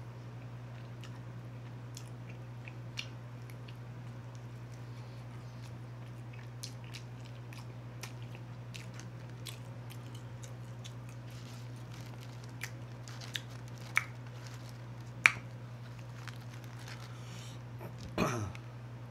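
Close-miked chewing and biting of chicken wings: soft wet clicks and smacks, with a few sharper clicks in the second half and a brief squelch falling in pitch near the end. A steady low hum runs underneath.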